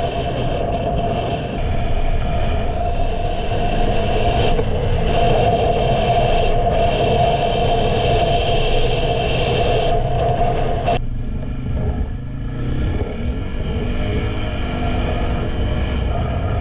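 ATV engines running under load off-road, a steady, rough engine hum over low rumble. About eleven seconds in the sound changes abruptly to an engine whose pitch rises and falls as it revs.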